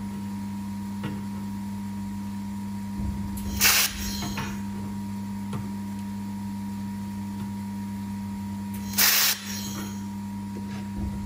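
Handheld fiber laser welder firing twice, each a short, sharp hiss lasting well under half a second, about five seconds apart: tack welds on galvanized steel sheet. A steady hum from the laser unit runs underneath.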